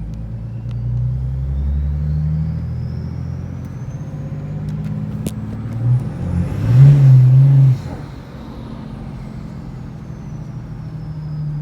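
BMW 335d's twin-turbo straight-six diesel running with a thin turbo whistle that climbs in pitch as the engine revs. About six seconds in, a loud rev pushes the whistle highest; then it drops back to idle and the whistle glides slowly down as the turbos spool down.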